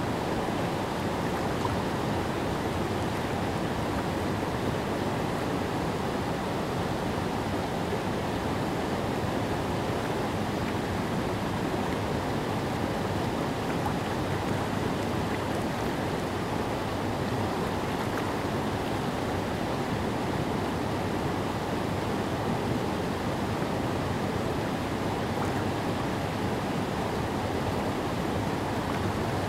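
Silver Creek's rapids: water rushing and churning over a low rocky ledge, a steady, unchanging noise.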